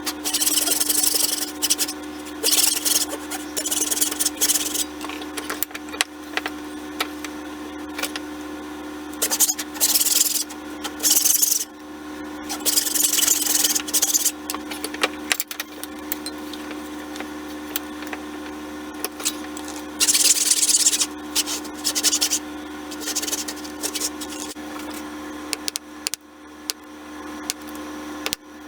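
Irregular strokes of a hand rasp scraping wood, each lasting from half a second to a second and a half with short pauses between, over a steady low hum.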